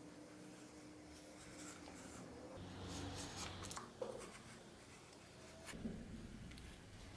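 Utility knife blade cutting along the edge of a piece of leather: faint scratching strokes, with a short click about four seconds in.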